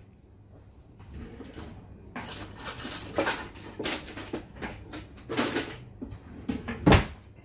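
Kitchen handling noises while a lasagna is assembled: several short scraping and clattering sounds, then one sharp knock near the end.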